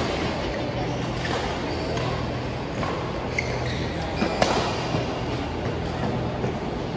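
Badminton rally: a shuttlecock struck back and forth by rackets, heard as several sharp hits a second or so apart, the loudest about four and a half seconds in, with a brief shoe squeak on the court mat. A steady low hum runs underneath.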